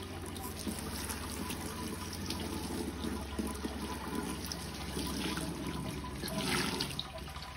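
Sparge water poured from a plastic jug onto a perforated stainless top plate over the mash, splashing and trickling through into the grain bed. The pour swells louder briefly about six and a half seconds in.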